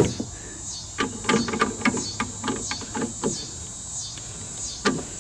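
Footsteps and hand-held camera handling noise, a series of irregular soft knocks and taps, strongest between about one and three seconds in, with a steady high-pitched buzz underneath.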